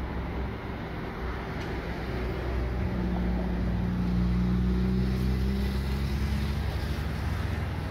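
Diesel engines of a Bayerische Regiobahn Alstom LINT diesel multiple unit running at the platform. They rise in level and pitch about three seconds in and ease back near the end.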